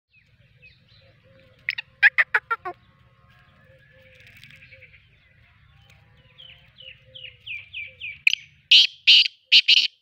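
Black francolin calling: a quick burst of about six loud, harsh notes about two seconds in, then a run of short falling notes that grow louder, ending in four loud harsh calls near the end.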